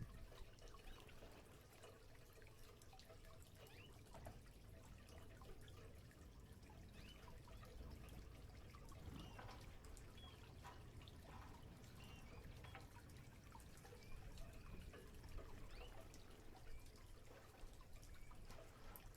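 Faint water splashing and dripping of a canary bathing in a water dish, with scattered small clicks and a few short high chirp-like sounds.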